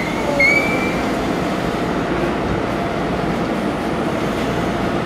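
Taiwan Railway EMU500 electric multiple unit standing at the platform, its equipment giving a steady hum and hiss. A high wavering squeal dies away about a second in.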